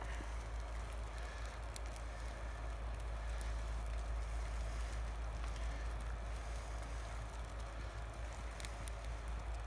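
Small wood campfire crackling, with scattered sharp pops over a steady low rumble.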